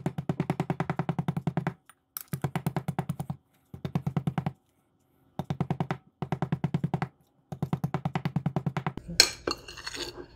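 A wooden-handled tool rapidly chopping roasted garlic and hot pepper against a ceramic plate, in quick even runs of strikes about a second long with short silent gaps between them. Near the end, a fork scrapes and clinks across the plate.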